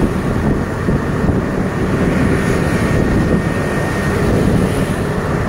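Steady rush of wind on the microphone and road noise while riding along with a pack of road cyclists.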